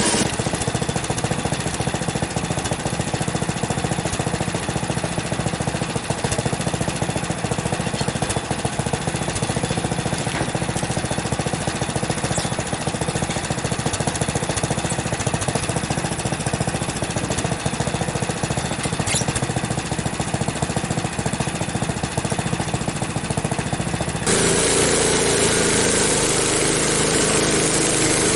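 The gas engine of a Frontier OS23 portable bandsaw sawmill runs steadily while the mill saws through an ash log. About 24 seconds in, the sound changes abruptly and becomes louder and brighter.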